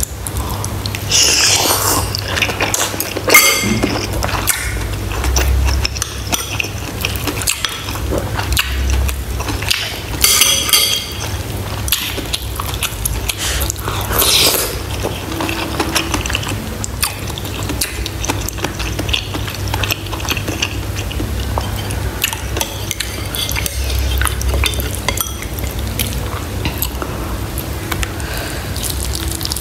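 Close-miked eating sounds: wet chewing and mouth sounds from a mouthful of pork bone soup and rice, with metal spoon clicks against ceramic bowls.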